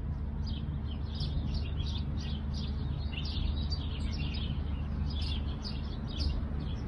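Small birds chirping continuously, short high chirps several times a second, over a steady low hum.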